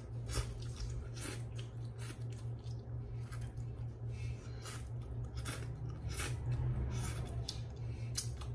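Instant noodles being slurped and chewed: a string of short, wet sucking slurps, several a few seconds apart, over a steady low hum.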